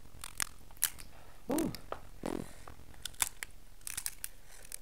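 Close-up eating sounds of king crab: sharp clicks and cracks of crab shell and mouth, with chewing. Two short hums falling in pitch come about a second and a half and two seconds in.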